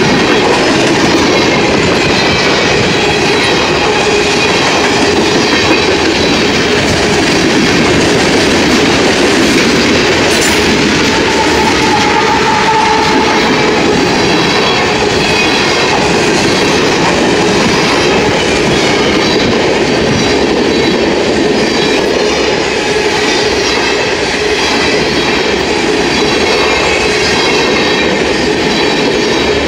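Freight train cars (covered hoppers and boxcars) rolling past a grade crossing at close range: a loud, steady rumble and clatter of steel wheels over the rails.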